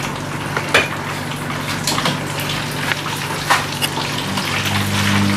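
Hot oil sizzling steadily around breaded pork and chicken katsu frying in pans, with a few sharp clicks of metal tongs against the pan. A low steady hum grows louder near the end.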